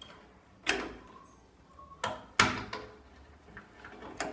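A stapler opened out flat driving large staples into cardboard on a wooden picture frame: four sharp clacks, two of them close together about two seconds in.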